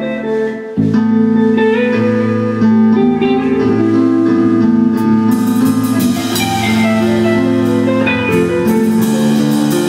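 Instrumental band jam: long held organ chords changing every second or so over guitar, with cymbal and drum strokes joining about five seconds in.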